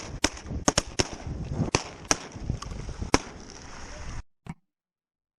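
A quick, irregular run of about eight sharp clicks and knocks over faint background noise; the sound then cuts off entirely a little past four seconds in.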